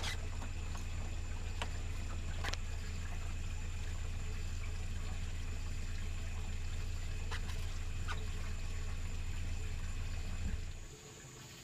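A steady low rumble with faint trickling water and a few light clicks; the rumble cuts off suddenly near the end.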